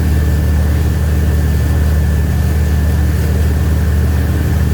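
Wake boat's engine running steadily: a loud, even low drone with a thin, steady whine above it.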